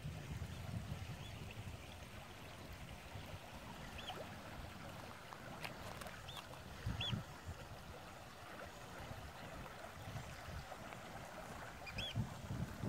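Shallow river running over gravel: a steady rush of water, with gusts of wind on the microphone. A bird gives a few short chirps over it.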